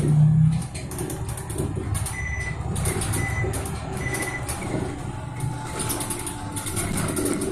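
Bus engine running low and steady as the bus drives along, heard from inside the cabin, with a louder low surge at the very start and high rattling. Partway through, three short high beeps come about a second apart.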